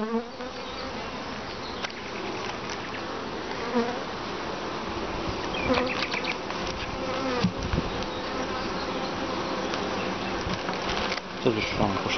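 Honeybee colony buzzing steadily from an opened hive full of bees, a constant hum. A few light knocks come roughly six to eight seconds in.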